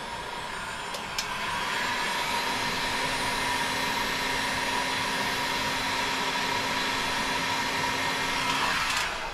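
Electric heat gun running steadily, its fan blowing hot air to shrink heat-shrink tubing onto a cable splice. A click comes about a second in, and the gun cuts off just before the end.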